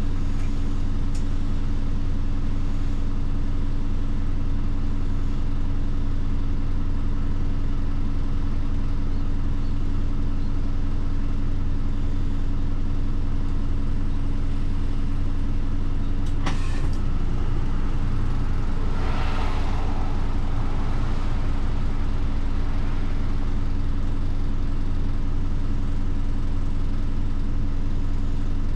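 A bus's diesel engine idling steadily, heard from inside the cabin while the bus stands waiting to depart. A sharp click comes about 16 seconds in and a brief hiss a few seconds later.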